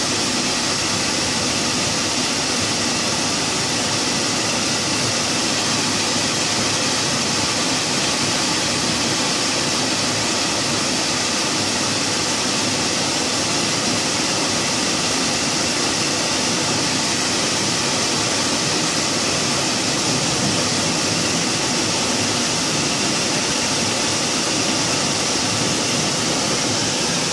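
Torrential rain pouring down with water rushing, a steady loud hiss that does not let up.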